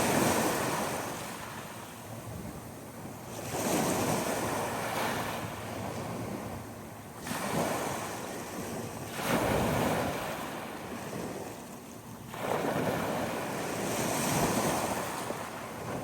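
Ocean waves breaking and washing in, a rushing noise that swells and fades about five times, every two to four seconds.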